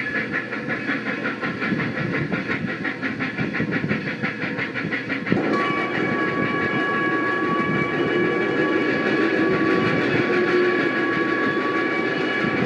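Toy train running on its track, with a fast, even rhythmic clatter. About five seconds in the sound changes to a steadier running noise, with steady high tones held over it.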